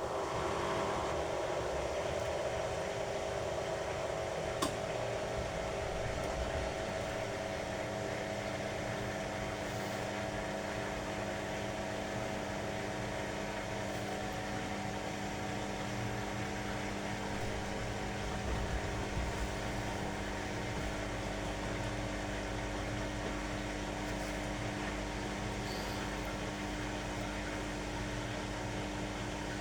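Beko washing machine running mid-cycle with a steady motor hum made of several steady tones. A higher tone fades out about halfway through, and there is a single light click early in the run.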